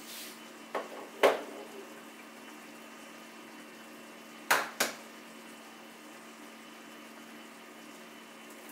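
Tomato sauce simmering in a stainless steel pan, a steady bubbling hiss over a faint steady hum, broken by sharp knocks as eggs are handled: two about a second in, the second the loudest, and two more midway.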